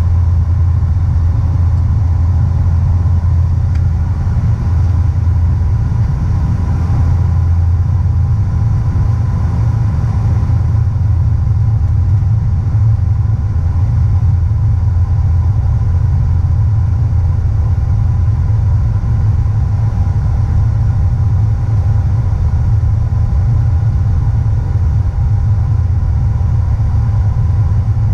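Cabin noise of a De Havilland Q400 turboprop on approach: a steady, loud low drone from its six-blade propellers and turboprop engines, with a steady higher whine over it.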